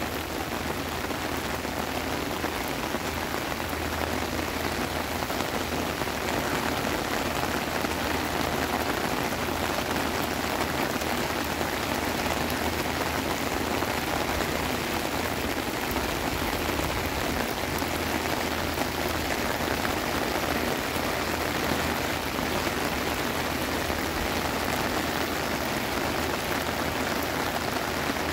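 Heavy rain falling steadily in a downpour, splashing on wet pavement and plantings and pattering on an umbrella overhead.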